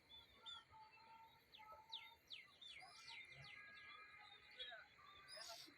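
Common tailorbirds chirping faintly, with repeated short chirps and runs of quick downward-sweeping notes. There is a brief scratchy burst near the end.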